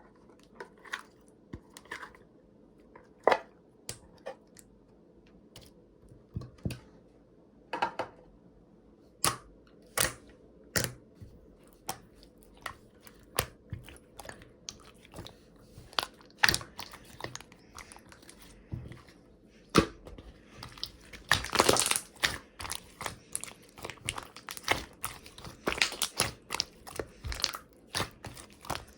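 Aloe slime being squeezed and poked by hand, giving sharp clicks and pops. They come sparsely at first, then thick and fast in the last third, with a loud crackling cluster about two-thirds of the way in.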